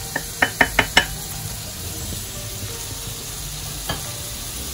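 Onions frying in oil in a pan, a steady sizzle. A spoon taps the pan five times in quick succession in the first second as ground spices go in, and a wooden spoon then stirs them through.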